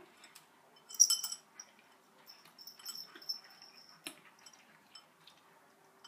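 Two house cats eating dry kibble from ceramic bowls on a tile floor: small crunches and sharp clinks of kibble against the bowls and tiles, loudest in a quick cluster about a second in and a single sharp click about four seconds in.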